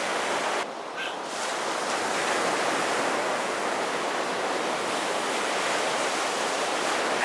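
Ocean surf washing in on the shore as a steady rush of noise, briefly dropping away about a second in.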